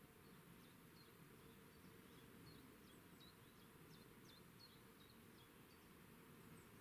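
Near silence with faint bird chirps: a string of short high notes, several a second, over a steady hiss of background noise.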